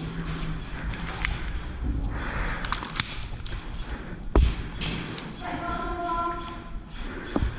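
Scattered sharp clicks and knocks from an airsoft game, with a heavy thump about four and a half seconds in and another near the end.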